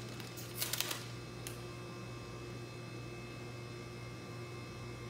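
A brief papery rustle and crackle of a Steri-Strip envelope being peeled open, just under a second in, with a faint tick about half a second later. A steady low electrical hum runs underneath.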